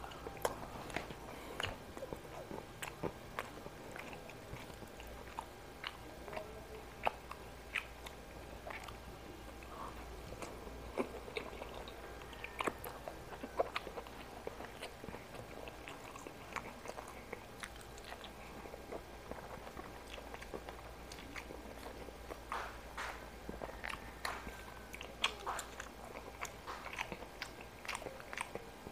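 Close-miked mukbang eating: a person chewing and biting food by hand-fed mouthfuls, with irregular crunches and wet mouth clicks, one to a few every second.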